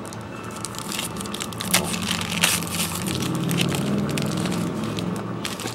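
Crinkling and crackling of a foil trading-card pack wrapper being torn open and handled, in irregular sharp snaps.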